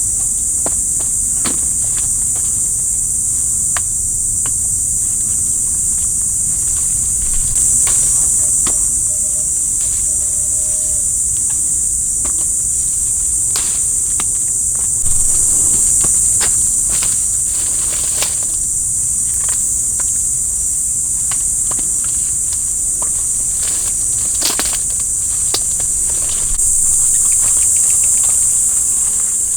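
Loud, steady, high-pitched drone of insects in the fruit trees, swelling louder a few times, with scattered short clicks and rustles over it.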